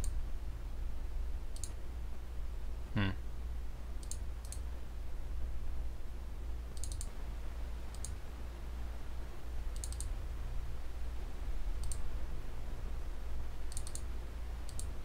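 Computer mouse button clicking: scattered single clicks and quick double-clicks every second or two, over a low steady hum.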